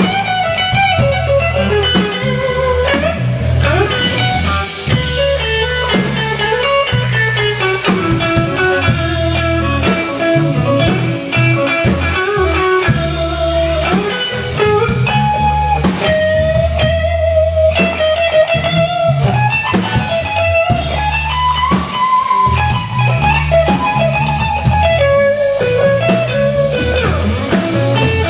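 A blues band playing an instrumental passage: a lead guitar line with bent notes over bass and drums.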